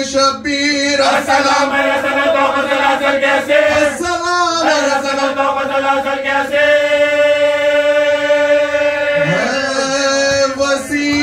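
Male voices chanting a noha, a mournful Urdu lament, in a slow melodic line. There is a long held note from about six and a half to nine seconds in.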